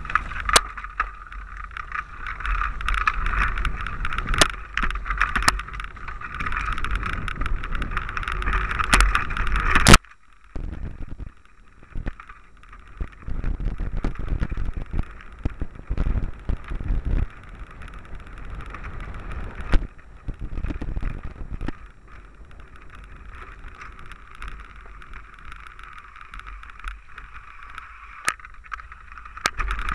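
Mountain bike ridden fast down a bumpy dirt trail: continuous rattling, knocks and tyre noise as the bike jolts over the ground. A sharp, loud knock about ten seconds in, after which the riding noise is quieter and more uneven.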